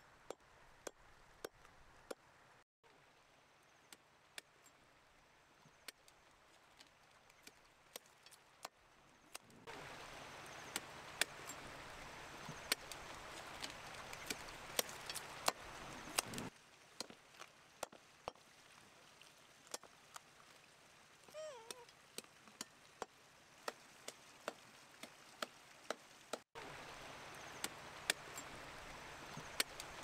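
Dogs crunching and gnawing cooked chicken bones: sharp cracks about once or twice a second. The rush of a shallow river comes up in two stretches, through the middle and again near the end.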